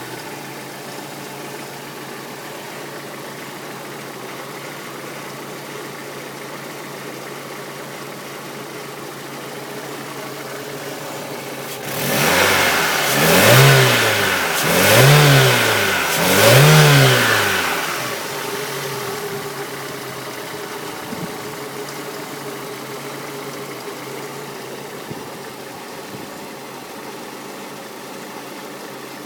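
Peugeot 206 GTi's 2.0-litre four-cylinder petrol engine idling steadily, then revved three times in quick succession about halfway through, each rev rising and dropping back, before it settles back to idle.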